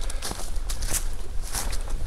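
Footsteps crunching through dry fallen leaves on a woodland trail at a steady walking pace, with a low rumble underneath.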